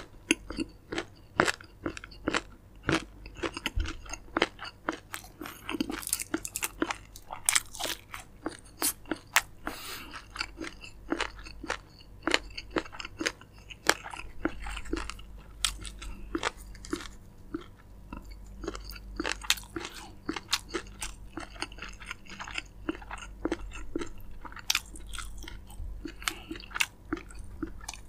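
A person chewing and crunching crispy fried chicken, with many irregular sharp crunches of the fried coating as it is bitten and chewed.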